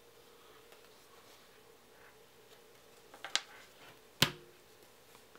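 A deck of game cards handled and knocked on a wooden table: a few quick card clicks a little past three seconds in, then one sharp tap about four seconds in as the stack is squared on the tabletop.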